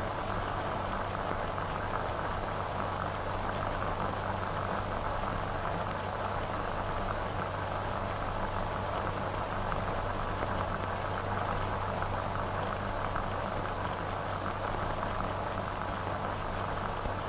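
Steady hiss and crackle of an old optical film soundtrack, with a constant low hum underneath.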